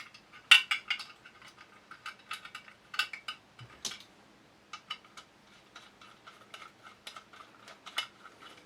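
Steel gun parts clicking and clinking against each other as the trigger is fitted back into a Sjogren shotgun's receiver: a string of sharp metallic clicks and taps, the loudest about half a second in and again around three, four and eight seconds in.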